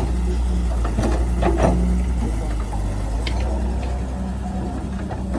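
Heavy earthmoving machine's diesel engine running steadily with a low hum, with a few sharp metal clanks over it.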